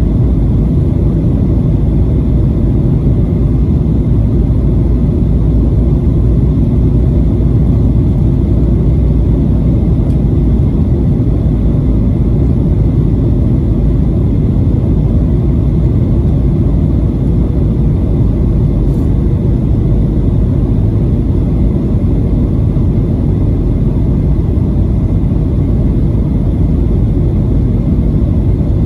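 Steady cabin roar of a Boeing 737-900ER in descent, heard from a seat over the wing: its CFM56-7B turbofan engines and the rush of air past the fuselage make a deep, even rumble, with a faint steady whine above it.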